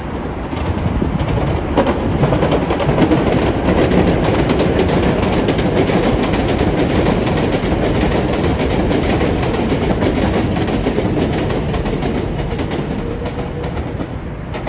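500 series Shinkansen high-speed train passing: a steady rush of wheel and air noise with fast rail clicks, building over the first two seconds and tapering off near the end.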